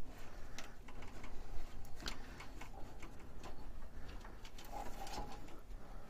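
Scattered light clicks and rustling of a wiring harness being handled and fed up against a 3D printer's case.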